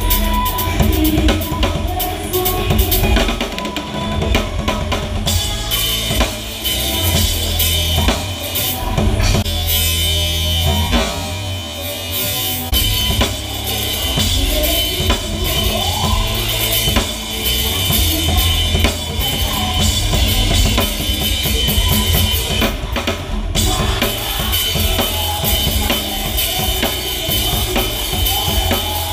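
Live band music with the drum kit loud and up front: steady kick drum and snare hits over electric bass and guitar.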